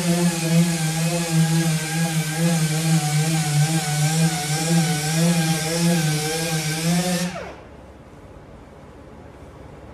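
Electric sander running while sanding a part, its motor pitch wavering slightly under load over a steady hiss. About seven seconds in it is switched off and winds down quickly with a falling pitch.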